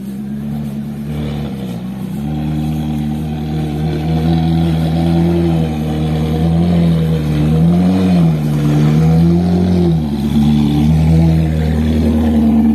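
Ferrari California's V8 engine at low revs as the car creeps closer, a steady low engine note that grows louder. The revs briefly rise and fall about eight seconds in.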